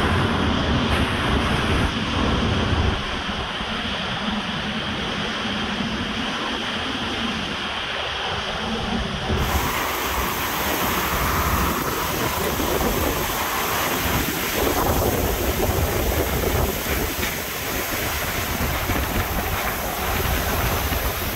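Hurricane-force wind in the core of a hurricane, a loud, continuous rushing roar with gusts buffeting the microphone. The sound changes abruptly about nine seconds in.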